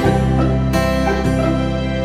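Background music: soft instrumental with keyboard and plucked guitar notes changing every half second or so.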